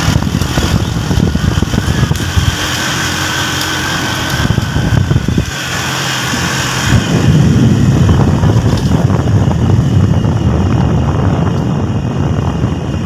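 Motorcycle running on the move, with wind buffeting the microphone; the low rumble grows louder about seven seconds in.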